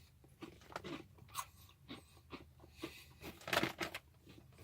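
Chewing a barbecue potato chip: a run of irregular crunches, the loudest burst about three and a half seconds in.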